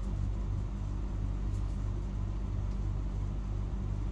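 Steady low mechanical hum, pulsing about three times a second.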